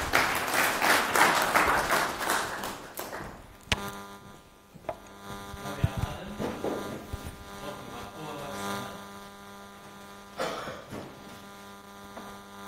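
Audience applause for about three and a half seconds, then a sharp click followed by a steady electrical mains hum with a few faint knocks and rustles.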